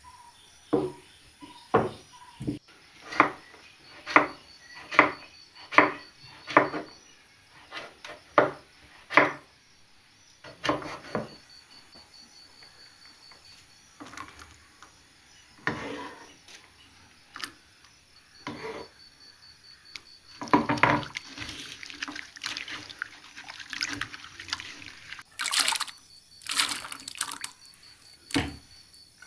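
Raw papaya being cut and the pieces dropped into a clay pot of water: a run of sharp knocks and plops a little more than one a second, then scattered plops, then a longer spell of splashing near the end as a bowlful of cubes is tipped in.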